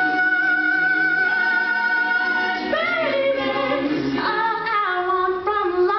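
Mixed-voice a cappella group singing in harmony, with a female lead voice. A high note is held over the group's chord for about two and a half seconds, then the voices move together through a run of changing notes.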